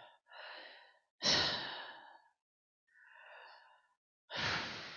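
A woman breathing heavily into a close headset microphone: four long, breathy sighs, the loudest about a second in.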